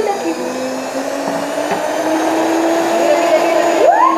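Electric stand mixer running, its motor whining steadily as the beaters churn cake batter in the plastic bowl; the motor's pitch creeps slowly upward.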